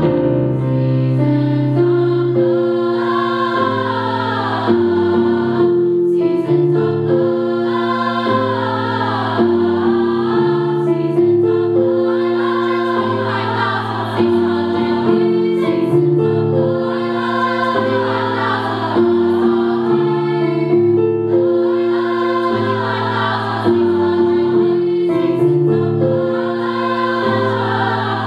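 Women's choir singing in parts, holding chords that change every second or two.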